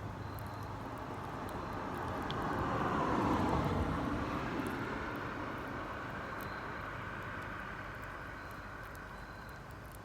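A distant engine passing by: a rumble that swells to its loudest about three and a half seconds in and then slowly fades, with a few faint clicks.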